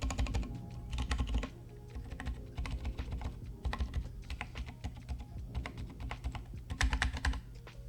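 Keys of a custom mechanical macropad fitted with silent red linear switches being pressed in quick runs of clicks.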